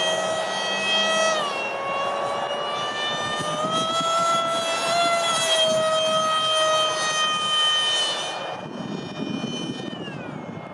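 Six-blade electric ducted fan of a Freewing Eurofighter RC jet whining in flight. Its pitch drops about a second and a half in, climbs again a few seconds later, and drops once more near the end, with the sound a little fainter in the last few seconds.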